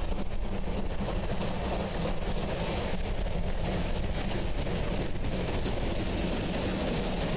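Victorian Railways A2 class 4-6-0 steam locomotive approaching with its train, a steady running noise that holds level throughout, with wind buffeting the microphone.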